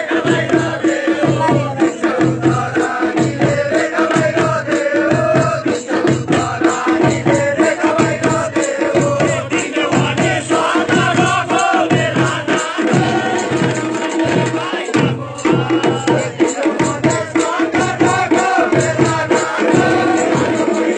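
Folk music with a steady drum beat, singing voices and rattling percussion.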